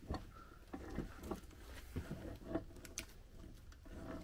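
Scattered light metallic clicks and taps from hand work on a Mercruiser MR-1 sterndrive's upper housing: a seal is being pried out with a pick while the driveshaft is turned, engaging the gears.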